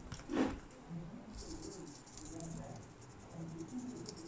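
Faint, dense crackling sizzle of flux paste under a hot soldering iron tip, starting about a second in. A short, louder noisy rustle comes just before it.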